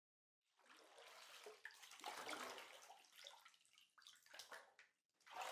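Faint water sounds, splashing and trickling in irregular bursts, loudest near the end.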